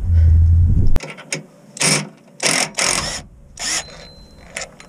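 A low rumble for the first second. Then a cordless impact wrench on the rear differential's bolts runs in four short bursts about half a second apart.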